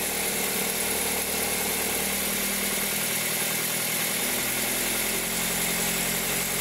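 2003 Toyota Corolla engine idling cold, running steadily, with a steady tone coming in about two seconds in. The customer's intermittent cold-engine noise, which the mechanic places at the accessory-belt tensioner, has eased off at this point.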